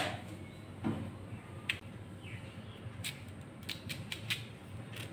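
Small kitchen knife peeling the skin off raw green mangoes: light scraping with a few sharp clicks at irregular intervals.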